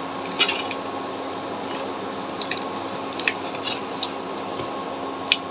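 Oil sizzling steadily in a frying pan as fried potato-and-flour rolls are lifted out, with a few scattered sharp clicks.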